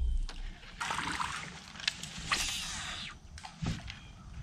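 Water trickling and splashing around a fishing kayak in two short spells, with a few light clicks.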